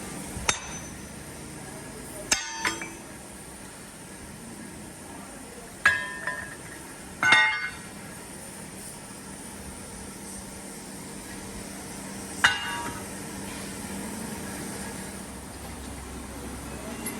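Metal clanking and knocking: about seven irregular strikes several seconds apart, some ringing briefly, over a steady low machine hum.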